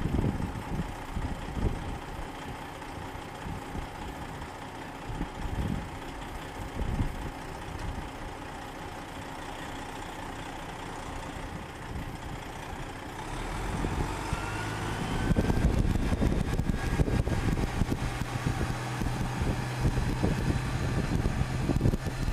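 Diesel log truck idling, then pulling away and driving off about two-thirds of the way through: the engine gets louder under load, with a rising whine as it accelerates.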